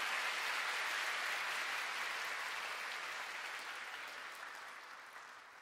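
Concert audience applauding, a dense even clatter of clapping that fades steadily away over a few seconds.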